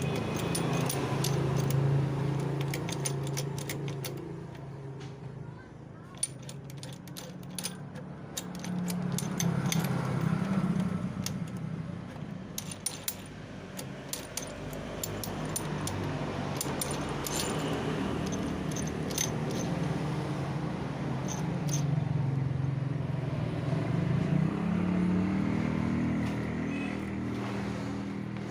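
Metal tools and engine parts clinking and clicking as a motorcycle engine is taken apart. Underneath is the hum of a running engine that rises and falls in pitch a couple of times.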